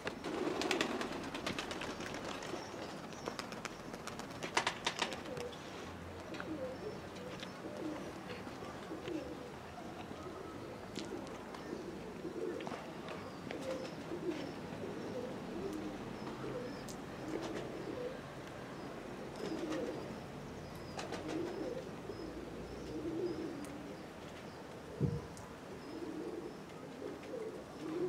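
Domestic pigeons cooing, a continuous run of short, low coos one after another. There are a few sharp clicks in the first seconds and a single dull thump near the end.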